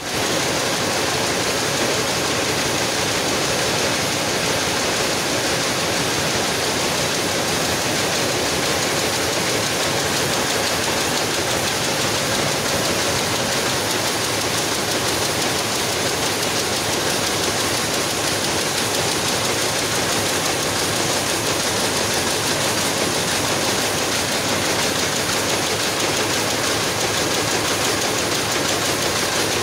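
Picanol GTX rapier looms running together on a weaving mill floor: a loud, steady, dense mechanical noise in which no single beat stands out.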